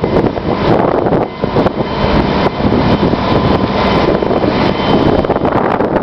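Wind buffeting the microphone over the steady drone of a fire truck's diesel engine running to power its raised aerial ladder.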